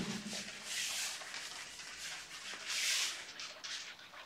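Handheld whiteboard eraser rubbing across a whiteboard: a run of soft hissing swishes, one stroke after another.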